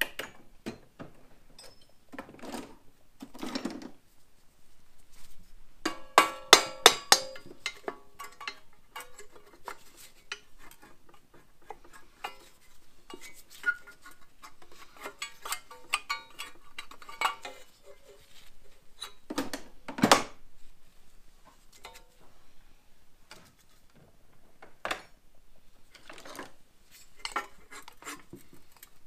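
A brass hammer tapping on the finned aluminium cylinder head of an 8 hp generator engine to break the head loose. A quick run of sharp, ringing metal taps comes about six seconds in. Scattered clinks and knocks of tools follow, with one heavier knock about twenty seconds in.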